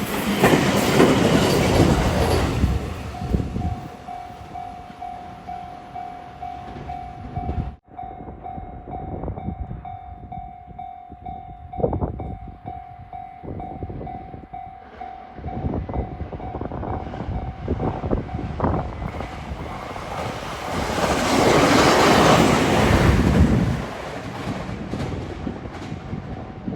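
A train passing over a railway level crossing, wheels clattering over the rail joints, while the crossing's warning bell rings on and on in a fast repeating beat. There is a sudden break about eight seconds in. A louder passing rush, likely a second train, rises about twenty-one seconds in and falls away by twenty-four.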